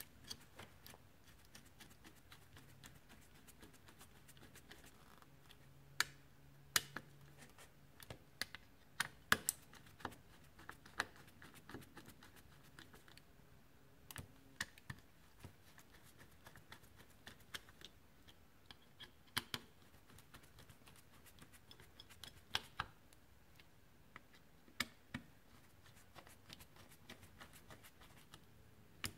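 Irregular small sharp clicks and ticks of a precision screwdriver turning screws in the back plates of a graphics card, with small taps as the card and tool are handled.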